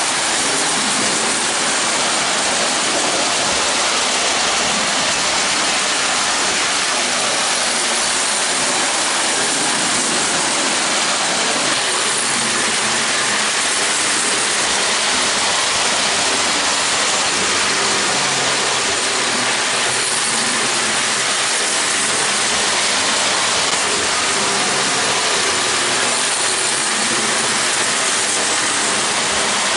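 Marx Commodore Vanderbilt tinplate electric locomotive running with a string of Joy-Line cars on tinplate track: the steady, unbroken noise of its electric motor, gears and wheels, running well after its broken gears were repaired.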